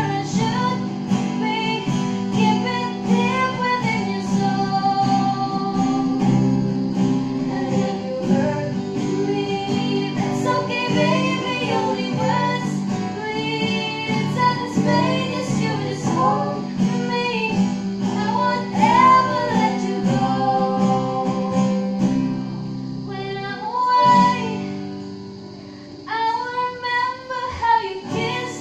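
A young woman singing a song, accompanied by two acoustic guitars.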